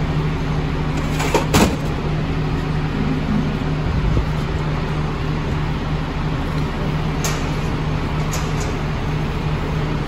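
Steady low machine hum in a truck repair workshop, with a few sharp metal clinks of parts being handled: one pair about a second and a half in and two more near the end.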